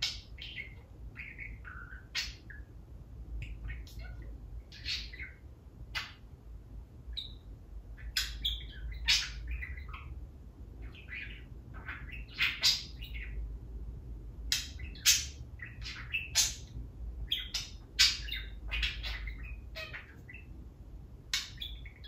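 Budgerigar chattering: a quick run of short, high-pitched chirps and squawks, getting denser and louder about a third of the way in, with several sharper calls.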